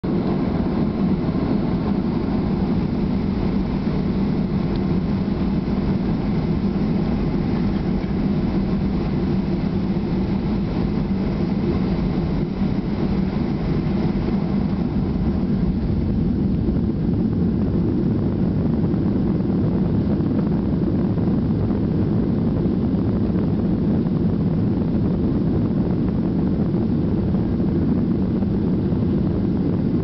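Steady drone of an airliner's jet engines and cabin noise, heard from inside the cabin as the plane taxis, with a strong low hum; the higher hiss eases off about halfway through.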